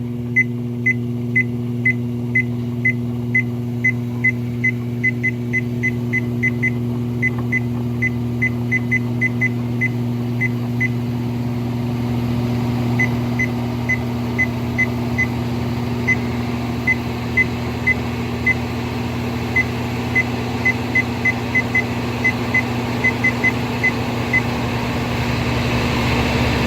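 Treadmill drive motor running the belt with a steady hum, while the treadmill's control console gives many short high beeps in quick runs, the sound of its speed button being pressed over and over; the beeps pause for about two seconds partway, and the motor grows a little louder near the end as the belt reaches high speed.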